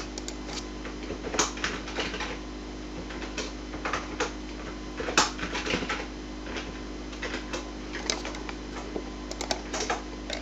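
Computer keyboard being typed on: irregular clusters of key clicks, with pauses between them, over a steady low hum.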